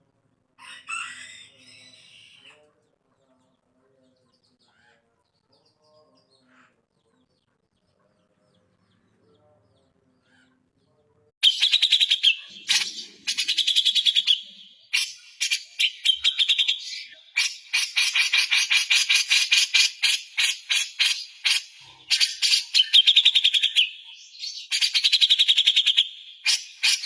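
Songbird singing in loud, fast chattering trills that begin about eleven seconds in and carry on in long phrases with short breaks, after one brief call near the start and a mostly quiet stretch.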